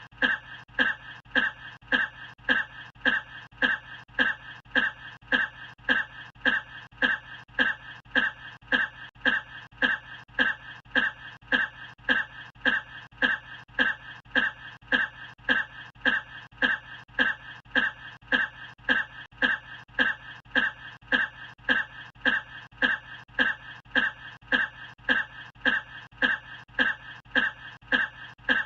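A man's short cough repeated over and over at an even pace, about two a second, each one the same: a single cough recording looped.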